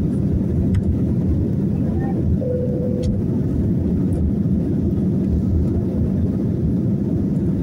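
Inside the cabin of an Airbus A320-214 climbing out just after takeoff: a steady low rumble from its CFM56 engines at climb thrust and the rush of air past the fuselage.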